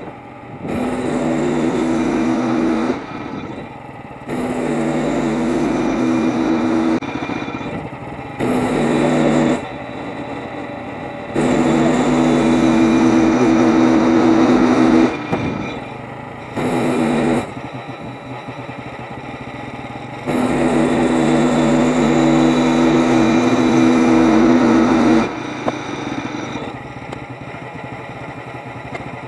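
Frontier OS23 portable bandsaw mill's gas engine repeatedly throttled up to a steady high-speed run for a few seconds, then dropping back to a lower idle, about six times.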